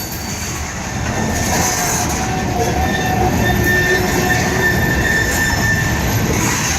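Freight train cars rolling past on steel rails with a steady rumble, and a thin wheel squeal coming in after about two seconds.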